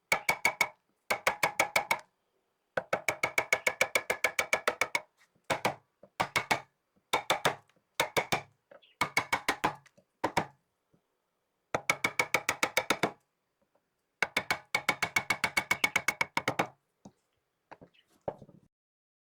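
Rapid wooden tapping or knocking, about ten even knocks a second, each with the same hollow ring. It comes in bursts of one to three seconds separated by short silent gaps, with a few scattered single knocks near the end.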